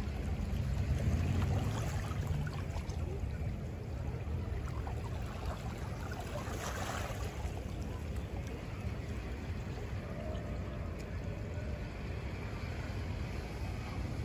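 Steady low rumbling wash of wind and surf, with a brief louder hiss about halfway through.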